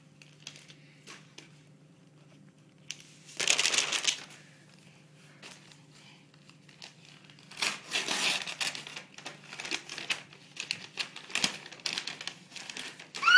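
Gift wrapping paper being crinkled and torn open by hand: a burst of rustling about three and a half seconds in, a longer one about eight seconds in, then a run of small crackles.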